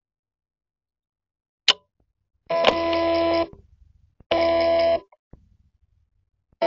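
A sharp click, then two short blocks of a steady electronic buzzing tone with a low hum under it, each starting and stopping abruptly.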